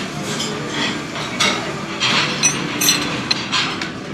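Irregular clinks and knocks of utensils and seafood shells against dishes during a seafood meal, some ringing briefly, over steady room noise.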